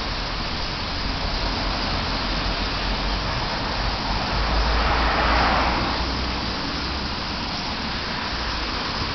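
Steady traffic noise on a town street, with one vehicle passing that swells and fades about five seconds in.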